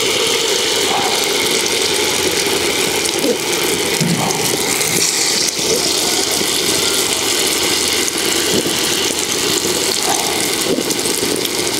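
A batter-coated green gram ball deep-frying in hot coconut oil in an iron kadai: a steady sizzle.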